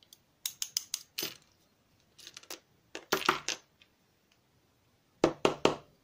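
Sharp metallic clicks and taps in several short clusters, with the loudest about three seconds in and three more near the end. They come from a lock cylinder's metal housing being knocked and handled over a plastic pinning tray while its pin springs are tapped out.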